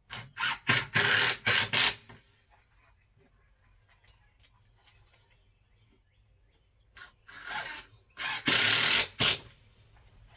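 A power tool run in short bursts of the trigger, harsh and mechanical: about five quick bursts in the first two seconds, then three more about seven seconds in.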